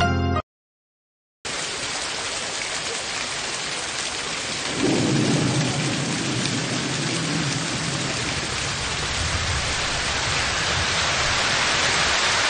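Background music cuts off, and after a second of silence steady heavy rain comes in, with a low roll of thunder swelling about five seconds in and fading away over several seconds.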